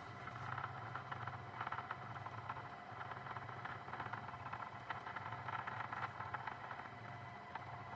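2m2tank CNC key cutting machine scanning a laser key's tracks: a faint, steady motor hum with many small clicks as the probe traces the key.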